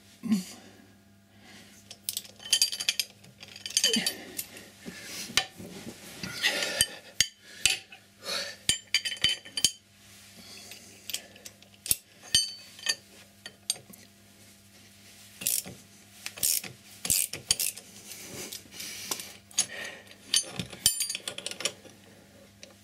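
Ratchet ring spanner clicking in irregular runs as it is swung back and forth, turning the press screw of a motorcycle chain tool to flare the rivets of a chain connecting link. Sharp metal knocks come between the runs.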